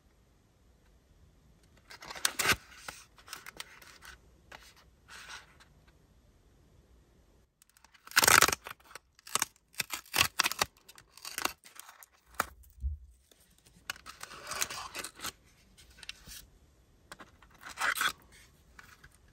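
Paperboard pie sleeve torn open along its perforated tear strip, in a series of short rips with the carton handled between them. The loudest rip comes about eight seconds in.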